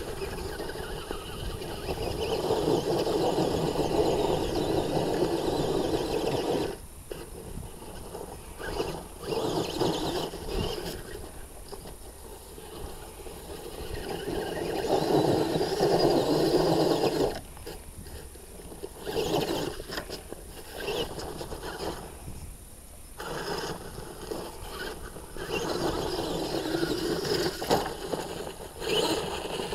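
The electric drive motor and gears of an HPI Wheely King radio-controlled monster truck whine in throttle bursts of a few seconds each, with short quieter pauses between, as it drives over loose dirt and stones.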